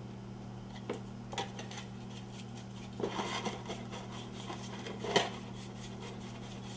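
Plastic spreader scraping and tapping on a mixing board as Bondo body filler is stirred together with its red hardener: a couple of light clicks about a second in, then a few seconds of scraping with a sharper tap near the end.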